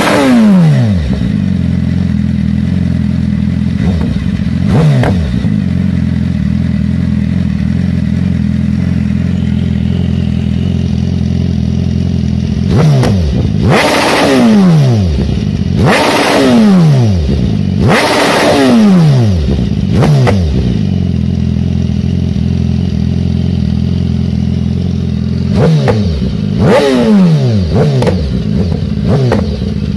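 BMW S1000RR's inline-four engine through an aftermarket exhaust, idling and revved in quick free-rev blips. Each blip rises sharply and falls back to idle. There is one right at the start, a small one about five seconds in, a run of four from about 13 to 20 seconds, and a pair near the end.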